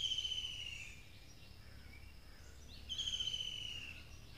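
A bird calling twice, about three seconds apart, each call a slightly falling trilled whistle lasting about a second, over a faint steady low hum of outdoor background.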